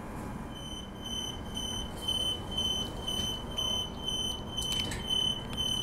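Electronic warning beeper on a Transperth B-series electric train, beeping a single high tone about twice a second over the carriage's steady background hum; at the terminus before departure this fits the door-closing warning.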